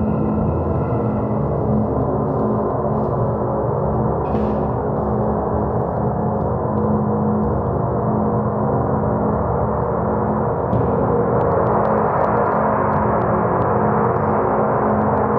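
Large gongs sounding continuously: a dense wash of many overlapping ringing tones that grows a little louder about two-thirds through.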